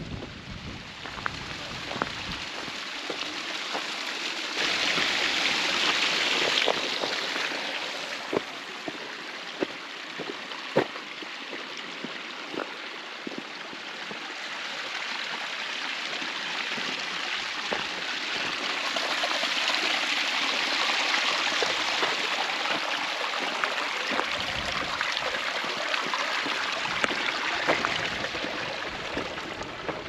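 Brook water running and splashing over rocks, a steady rush that swells louder twice, with scattered faint clicks.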